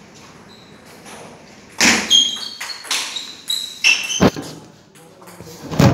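Table tennis rally: the ball clicking off the bats and bouncing on the table with short, high pings, a quick run of hits starting about two seconds in. A louder thud comes near the end.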